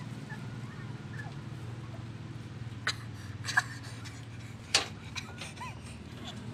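A steady low hum with a few sharp clicks about three to five seconds in, and a brief faint whimper from a puppy near the end.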